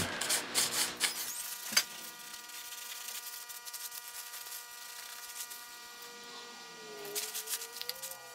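Paper towel rubbing and rustling against wood as dye stain is wiped onto a walnut-veneered furniture leg, in short spells at the start and again near the end. A single sharp tick comes a little under two seconds in, and a faint steady hum runs underneath.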